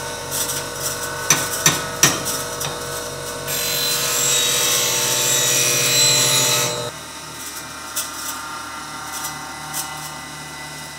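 Steel City bench grinder running with a steady hum, with a few sharp clicks in the first two seconds. About three and a half seconds in, the steel negative rake scraper is pressed to the spinning wheel: a loud hissing grind lasting about three seconds, which raises a burr on the top of the scraper. Then the grinding stops and the hum goes on more quietly.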